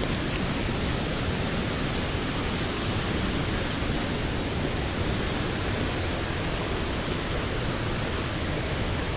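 Dray Nur waterfall pouring, a steady, even rush of falling water.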